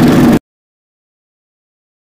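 Engine of a wooden fishing boat under way, running steadily with a low hum over a rushing hiss. The sound cuts off abruptly less than half a second in, leaving total silence.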